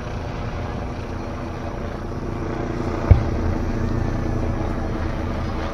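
A single deep boom from a distant firework shell bursting about three seconds in, with a brief low rumble after it, over a steady low background rumble.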